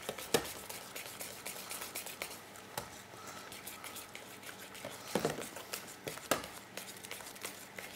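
A wire whisk stirring thick cheese dough in a stainless-steel bowl as beaten egg is poured in: soft squelching with a few light clicks of the whisk against the bowl.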